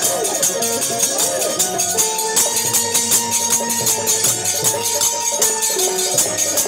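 Bhojpuri folk lahara, an instrumental interlude: an Indian banjo plays a sustained melody over a fast, steady naal drum rhythm and jingling percussion.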